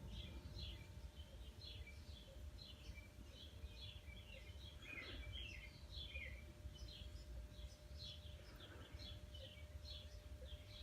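Faint outdoor birdsong: many short high chirps, several a second, over a low background rumble.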